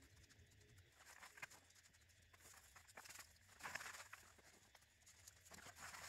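Faint, short spurts of hissing from a can of expanding foam sealant being sprayed, a few times over a near-silent background.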